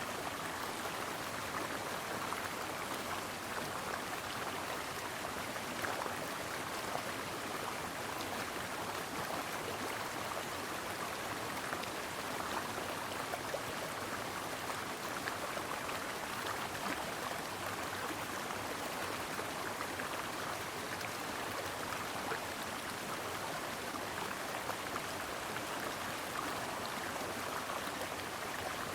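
A brook running over stones: a steady rush of water with many small splashes and gurgles through it.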